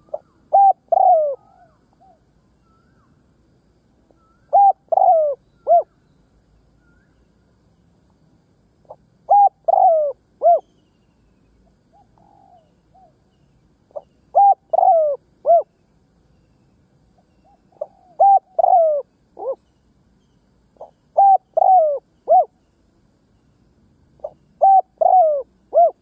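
Spotted dove cooing: seven short phrases, each a quick run of three or four coos, repeating every four to five seconds. It is the cooing call of a decoy dove, used to provoke wild spotted doves and draw them in.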